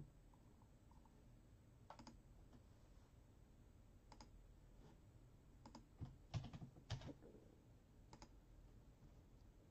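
Near silence broken by faint scattered clicks and taps: one about two seconds in, one around four seconds, a quick run of several between six and seven seconds, and a last one just after eight seconds.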